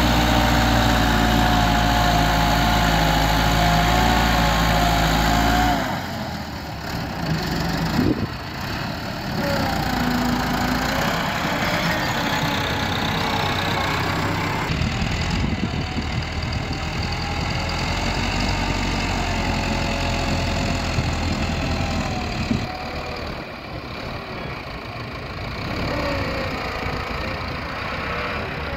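Massey Ferguson 375 tractor's four-cylinder diesel engine running under load while its front blade pushes soil. The sound drops in level and turns rougher about six seconds in, with one sharp knock a couple of seconds later.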